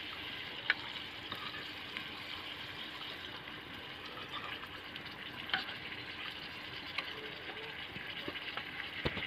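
Meat sizzling steadily as it fries in a metal pan over a wood fire, while a metal ladle stirs it, clinking and scraping against the pan a few times.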